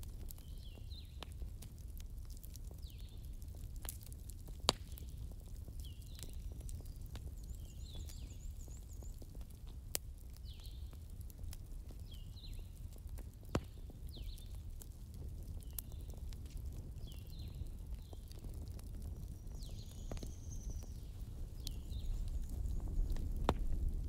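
Log campfire crackling, with a few sharp pops, over a low steady rumble that grows louder near the end. Short high chirps from a small bird repeat every second or two.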